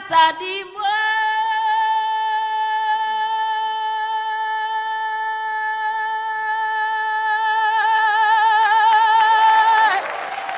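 A woman singing one long held note into a microphone, unaccompanied, steady at first and wavering in pitch toward the end. As the note ends about ten seconds in, audience applause breaks out.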